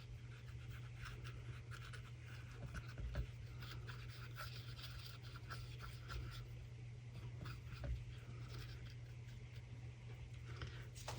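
A short stubby brush rubbing chameleon flakes onto resin pieces in a silicone mould: a faint, dry, scratchy brushing with small ticks, and a couple of soft knocks. A steady low hum underneath.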